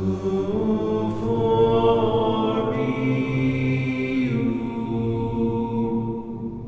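Background music of chant-like vocals held over a low drone. It swells in at the start and fades back near the end.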